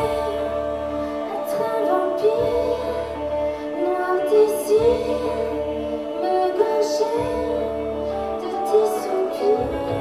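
Music: a woman singing a melody over sustained bass notes, with a few short percussion hits.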